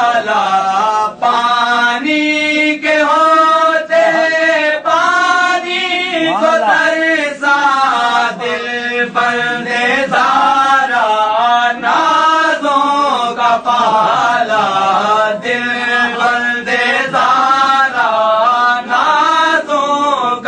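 A man chanting verses in a slow, sung recitation: one voice holding long notes and sliding between them, with short breaks between phrases.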